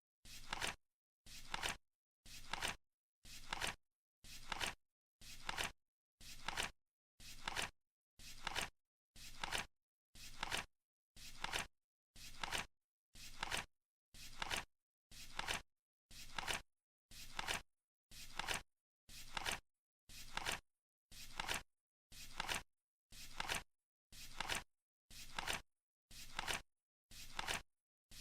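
Flip-clock card flapping over once every second, each flip a short clack that swells and cuts off sharply, keeping time for a countdown.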